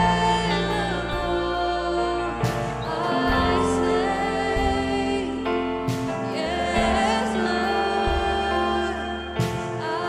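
Church worship team singing a worship song with instrumental accompaniment.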